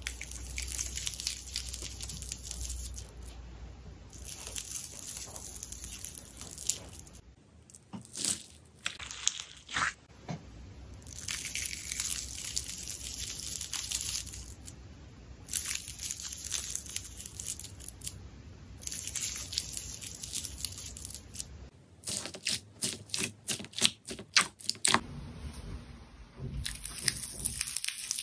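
Jelly slime being stretched and squeezed by hand, crackling and popping in repeated bursts of a second or two, with a quick run of sharp pops later on.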